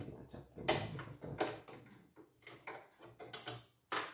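Irregular clicks, knocks and rattles of small parts around the needle plate of a portable computerized embroidery machine being worked loose and taken out by hand.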